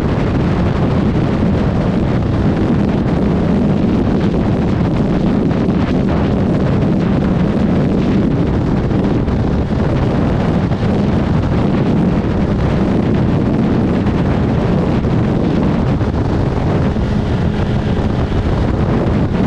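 Wind rushing over the microphone at motorway speed, mixed with the steady drone of a first-generation Suzuki GSX1300R Hayabusa's inline-four engine cruising, with no change in speed or revs.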